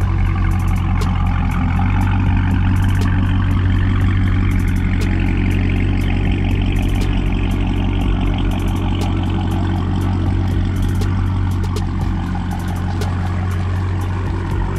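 Supercharged 6.2-litre HEMI V8 of a Dodge Charger Hellcat Widebody, loud and steady at a low-speed idle burble as the car pulls slowly away.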